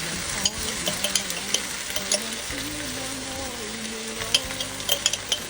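Chopped chilies and minced garlic sizzling in oil in a pan over low heat, stirred with a spatula that clicks and scrapes against the pan again and again.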